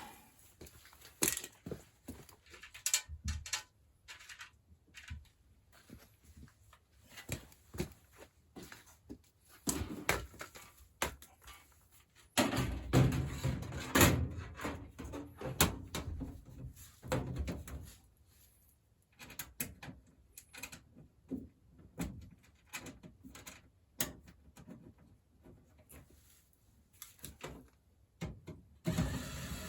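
Handling noises from work on a furnace: scattered clicks and knocks, with a louder, denser run of knocking and rubbing from about twelve to seventeen seconds in.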